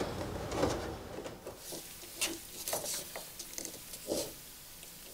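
Scattered light clicks and knocks from the Bosch GTS 254 table saw's blade-tilt mechanism as the stopped blade is set to a 45° bevel.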